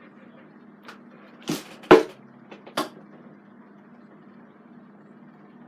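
A few sharp knocks and clatters, the loudest about two seconds in, over a low steady hum: something falling or being knocked over and making a mess.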